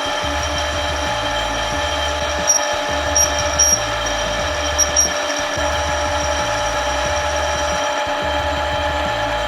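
Electric power tool motor running steadily at one speed with a whine of several fixed pitches, with a few brief high squeaks a few seconds in. Background music with a stepping bass line plays underneath.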